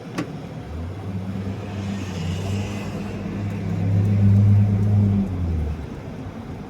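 A motor vehicle's engine running with a steady low hum. It grows louder toward the middle and fades out near the end, with a single click at the very start.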